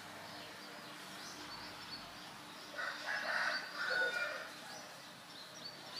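A rooster crowing once, about three seconds in, over small birds chirping.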